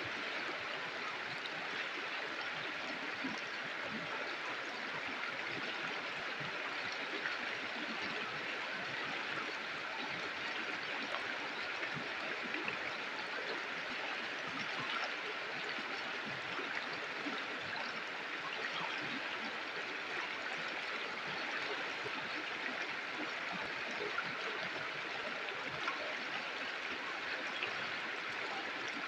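Flowing river water rushing and gurgling steadily over rocks, a continuous even babble with small splashes throughout.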